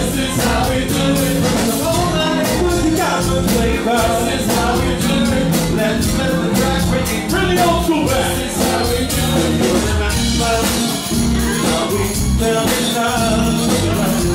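Live band playing an 80s-style freestyle dance song: drum kit and keyboards with a steady beat, and singers on microphones over it.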